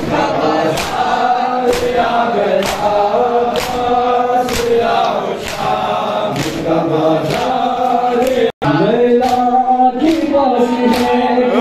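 A group of men chanting a noha in unison, with a sharp chest-beating (matam) stroke about once a second keeping time. The sound cuts out for a split second about two-thirds of the way through, then the chanting goes on.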